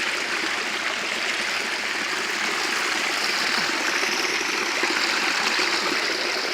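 Small waterfall splashing onto rock and running off as a stream: a steady rush of water, its flow rather weak.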